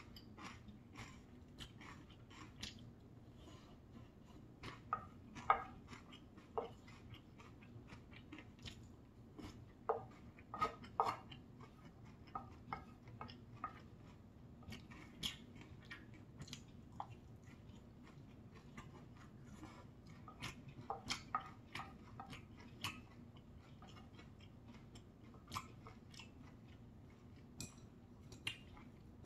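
A person chewing quinoa rice with thick soybean paste (gangdoenjang) close to the microphone: irregular wet mouth smacks and clicks, some of them much louder than the rest.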